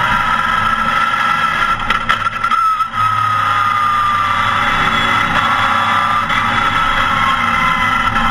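Porsche 914 race car's engine heard from inside the cockpit, pulling hard on track. The note breaks briefly with a few clicks about two to three seconds in, then eases slightly lower and climbs again near the end.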